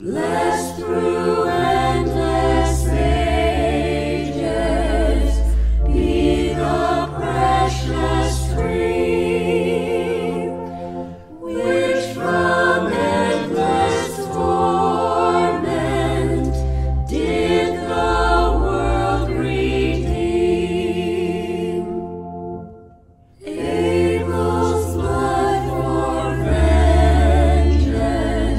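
Small mixed choir of men and women singing a hymn verse in unison-and-harmony phrases, accompanied by organ with sustained low pedal notes. The singing breaks for short breaths between phrases about 11 and 23 seconds in.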